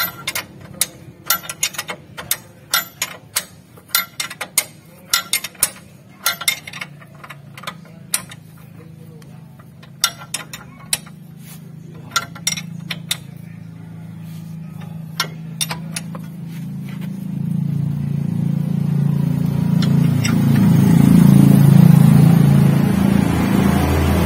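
Metal wrench clicking on the nut of a Mitsubishi L300's new lower ball joint as it is tightened: sharp, irregular clicks in quick groups. After about two-thirds of the way, the clicks thin out and a low vehicle-engine hum swells up, loudest near the end.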